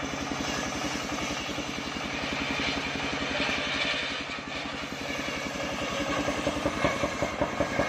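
Engine of a circular-saw sawmill running steadily with a rapid, even chugging pulse, with a few sharper knocks and clatter near the end.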